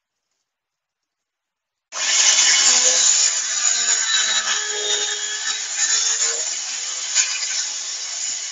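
An angle grinder converted into an electric saw cutting wood: after about two seconds of silence it starts suddenly with a loud, noisy cut that eases off slightly as it goes on.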